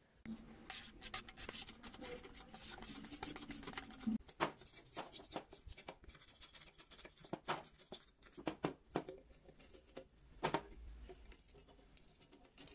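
Hand scraper scraping paint off a bicycle's front fork leg in quick, irregular strokes, metal rasping on metal. The strokes begin about four seconds in, after a few seconds of rubbing and handling noise.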